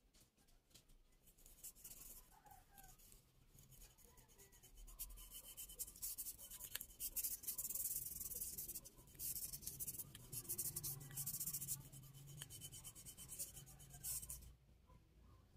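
A strip of WD-40-soaked abrasive scrubbing pad rubbed rapidly back and forth along a steel fan-motor rotor shaft to clean it: a fast scratchy scrubbing in spells with short pauses, strongest in the middle and stopping shortly before the end.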